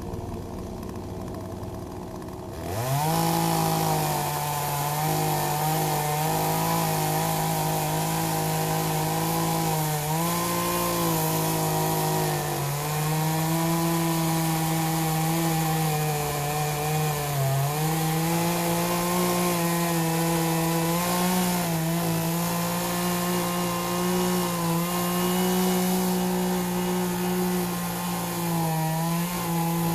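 Poulan 18-inch gas chainsaw idling, then opened up to full throttle about three seconds in and held there cutting into a tree stump. Its engine note sags briefly under load several times.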